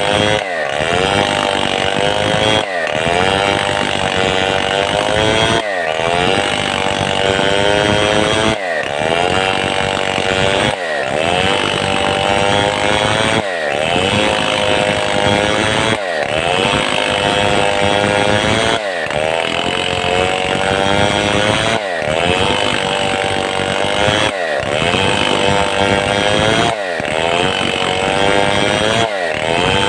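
Stihl 070 two-stroke chainsaw running under load while ripping a mahogany log into planks. Its engine pitch dips and climbs back again about every two and a half seconds as the chain bites and frees in the cut.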